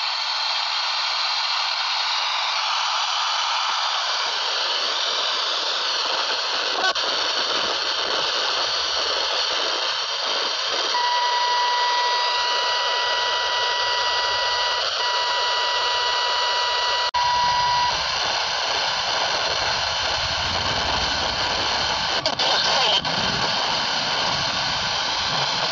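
Sony ICF-F12USB portable radio's speaker hissing with static as the tuning knob is turned between stations. A steady whistle sounds for about seven seconds in the middle, and a low rumble joins the hiss in the last third.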